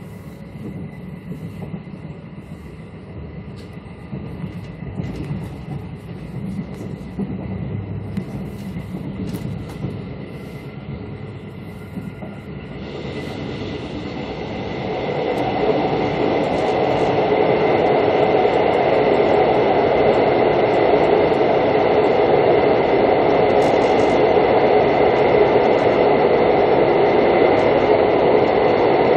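Mugunghwa-ho passenger train running, heard from inside the carriage: a steady rumble that swells over a few seconds, from about 13 seconds in, into a much louder steady roar as the train runs into a tunnel.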